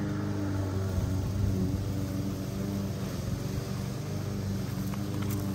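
An engine running steadily at an even pace, a low hum with a constant pitch, with a couple of light clicks near the end.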